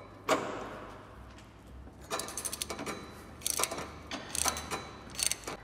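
Hand ratchet on a socket extension clicking in short bursts as its handle is swung back and forth, running a rear subframe bolt in before final torque. A single sharp knock comes just after the start.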